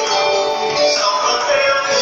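Music with guitar, loud and steady.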